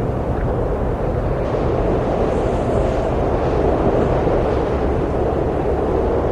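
Steady wind blowing, a low, even rushing noise that swells a little around the middle.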